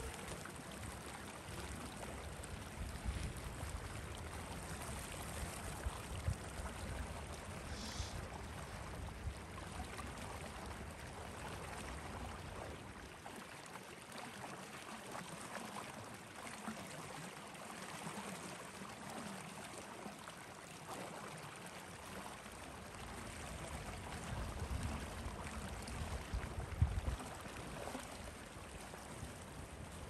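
Wind blowing in a snowy mountain valley: a steady rushing hiss, with gusts buffeting the microphone in low rumbles that ease off in the middle and return near the end.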